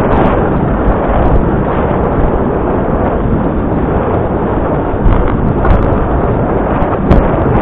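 Wind buffeting the microphone: a loud, steady rumbling noise, heaviest in the low end, with a few short clicks.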